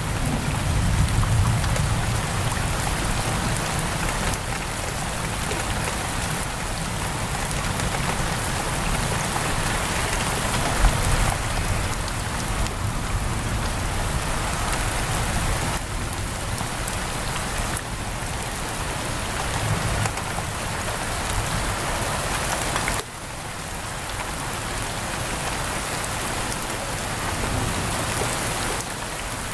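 Steady heavy rain pattering on a window, with a low rumble of thunder fading out at the start.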